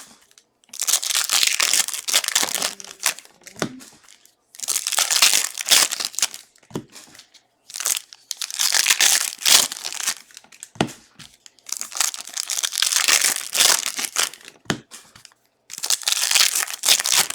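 Trading-card pack wrappers crinkling and tearing as they are ripped open, in about six separate spells of rustling, each one to two seconds long, with short pauses between.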